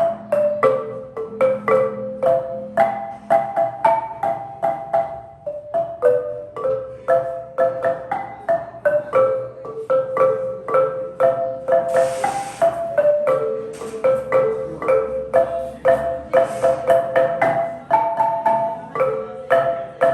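Marimba de chonta, its wooden bars struck with mallets, playing a quick repeating currulao melody of several notes a second.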